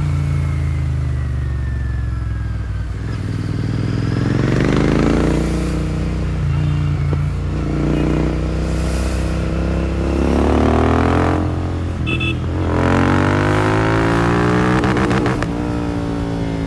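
Royal Enfield Continental GT650's 648 cc parallel-twin engine through a Powerage short cone aftermarket exhaust, on the move. The exhaust note eases down at first, then climbs in pitch under acceleration three times, dropping back after each climb.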